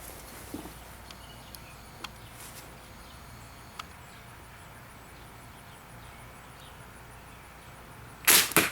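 Homemade slingshot rifle with 3.5-foot rubber bands and rollers firing near the end: two loud sharp cracks in quick succession as the bands snap forward and the shot hits pretty hard. Before it, only a few faint clicks over a quiet outdoor background.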